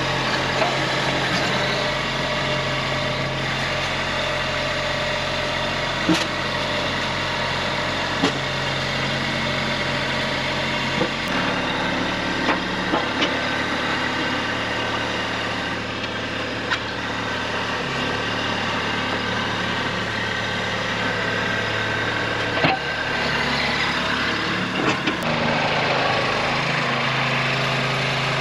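A vehicle engine running steadily at low speed, its pitch shifting up or down a few times as the speed changes, with scattered short knocks.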